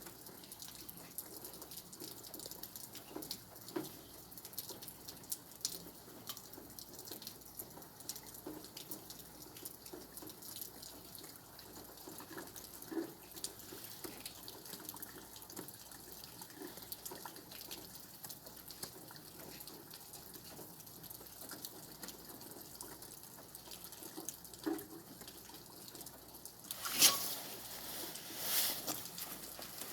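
Steady rain falling, a dense patter of drops and drips. Near the end come two short, louder rushes of noise.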